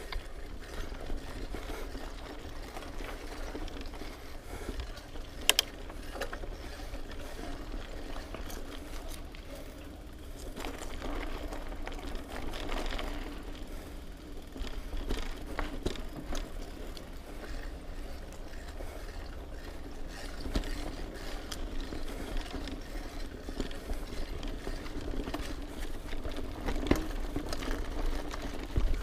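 Mountain bike rolling along a dirt trail, its rear hub freewheel ratcheting as it coasts, with tyre noise and chain and frame rattle, and a sharp click about five seconds in.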